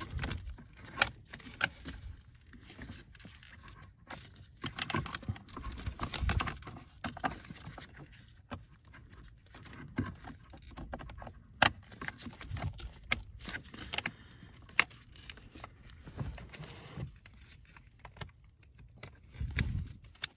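Plastic blower motor assembly being handled and fitted back into its housing under the dashboard: irregular clicks, knocks and light rattling.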